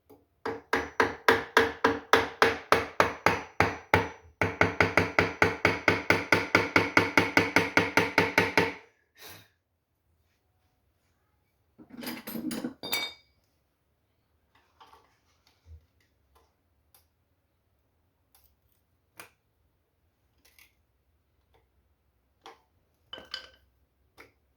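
Rapid, evenly repeated metallic clicks from a hand tool, about four a second and then about seven a second, each with a short ring, stopping about nine seconds in. A brief metallic clatter follows around twelve seconds in, then a few scattered light knocks.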